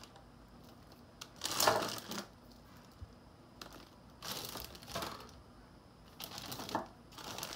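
Clear plastic zip-lock bags crinkling as they are handled and shifted, in three short bursts with quieter gaps between.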